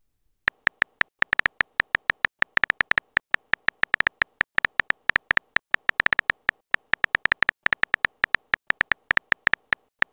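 Keyboard tap sound effect of a texting-story app: a rapid run of short, sharp clicks, several a second, one per letter as a message is typed out, starting about half a second in.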